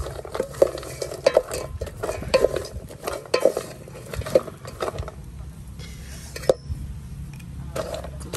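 Wooden spatula stirring sliced oyster nut (kulekula) pieces in a metal pot, scraping and knocking against the pot in irregular strokes about once or twice a second. The strokes ease off for a couple of seconds near the end.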